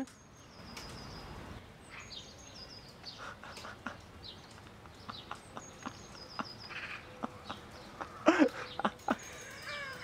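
Empty washing-machine drum turning, belt-driven from an upside-down bicycle worked by hand: a low steady rumble with scattered light clicks and rattles. Short high chirps, like birds, come in here and there, and a brief chuckle sounds near the end.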